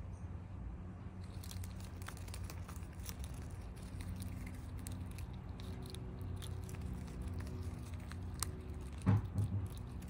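Eastern chipmunk gnawing a peanut shell: many small, sharp crackling clicks as its teeth work at the shell, over a steady low hum. A brief low thump about nine seconds in is the loudest sound.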